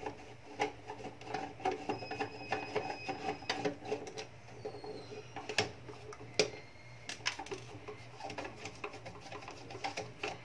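Multimeter probe tips tapping and scraping on the solder joints of a circuit board while resistors are measured: a run of light, irregular clicks over a low steady hum.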